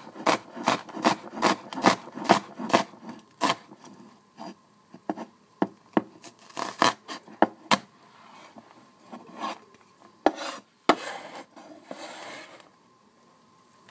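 Kitchen knife chopping onion on a wooden cutting board: a quick run of knocks about three a second, then slower scattered chops, and a brief scrape near the end as the diced onion is pushed together on the board.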